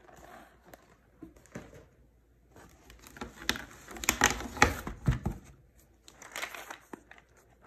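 Packaged snacks being handled in a cardboard box: rustling of cardboard and packaging with sharp clicks and knocks. The loudest stretch is about three to five seconds in, as a plastic tub with a blue lid is gripped and lifted out, with a shorter spell of rustling near the end.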